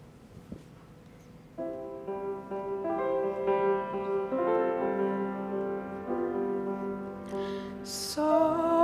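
Piano introduction to a carol: sustained chords start about one and a half seconds in after a near-quiet pause. Voices begin singing right at the end.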